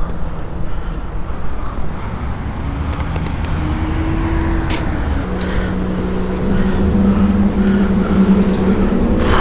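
A motor engine running steadily, droning louder from about halfway through, with scattered clicks and knocks of a wire crab trap and gear being handled.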